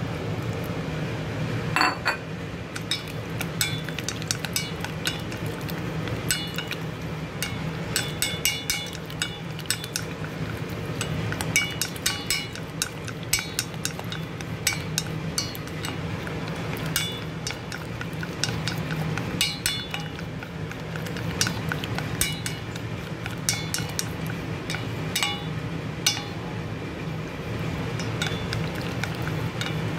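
Wooden chopsticks beating eggs with chopped string beans in a metal bowl: rapid, irregular clinks of the sticks against the bowl's side, beginning about two seconds in. A low steady hum runs underneath.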